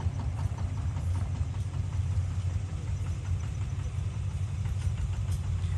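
Engine running steadily at idle, a constant low hum.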